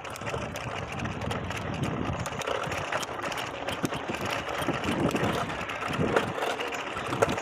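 Steady rushing wind on the microphone and road noise while riding a bicycle.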